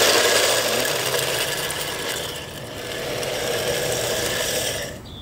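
RC drift car driving on asphalt: its motor whirring and its hard plastic tyres scrubbing as it slides along. It is loudest as it passes close, fades about halfway through, then picks up again before dropping off near the end.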